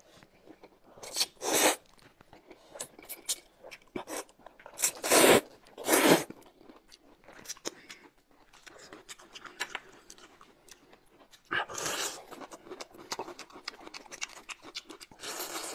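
Close-miked eating: several loud slurps of noodles with chewing between them, then crisp crunching bites into peeled fresh bamboo shoots toward the end.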